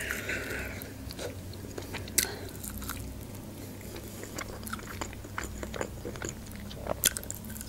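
A person biting into a chicken wing and chewing, with soft crunches and wet mouth clicks, and a sharper crunch about two seconds in and another near the end.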